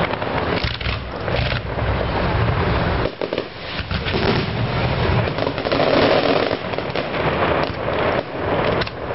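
Fireworks display: a dense, continuous barrage of bursting shells and crackle, with deep booms rolling and echoing between the buildings. It is loudest about six seconds in.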